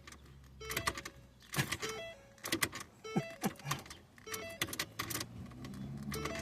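Car key clicking and jangling in a 2008 Ford Focus ignition lock as it is forced and jiggled again and again without the engine cranking. This no-crank key sticking is the symptom the owner puts down to a failing ignition lock housing.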